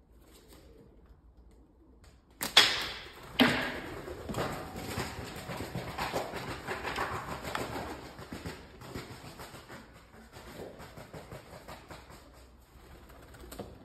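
A catapult shot at a feral pigeon: a sharp crack about two and a half seconds in, a second knock a second later, then several seconds of pigeon wings flapping that slowly die away.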